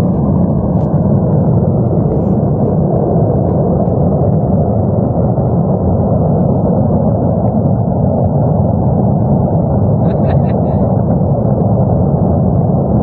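Loud, steady roar of gas burning as it escapes from a ruptured main gas pipeline, deep and even, with a few faint clicks about ten seconds in.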